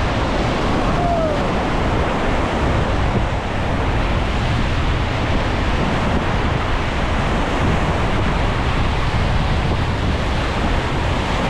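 Whitewater river rapids rushing and splashing steadily around a raft, with wind buffeting the microphone.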